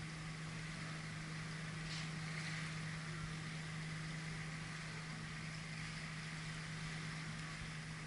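Steady low hum of the cruise ship's machinery, heard from the balcony, with an even hiss of wind and sea.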